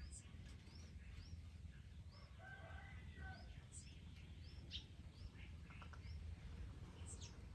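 Faint bird chirping: a steady series of short, high, rising-and-falling chirps, roughly two a second, with a few sharper higher calls and some lower notes about three seconds in, over a low steady rumble.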